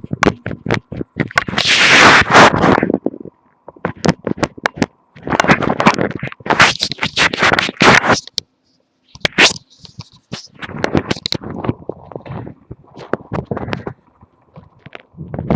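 Handling noise from a webcam microphone pressed against the body: the microphone rubs and scrapes on skin, with many sharp clicks and crackles in several loud bursts separated by short pauses.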